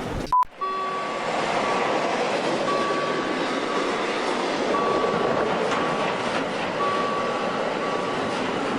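Dubbed-in train sound effect: a railway train rolling along with a steady rushing noise and a high tone that keeps coming and going. It begins after a brief loud burst that cuts off suddenly about half a second in.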